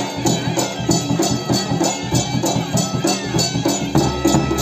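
Odia folk dance music for Danda Nacha: a pitched melody over percussion, with crisp metallic-sounding strokes keeping an even beat of about three a second.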